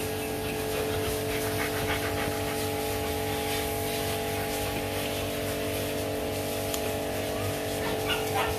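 A machine running with a steady, even-pitched hum.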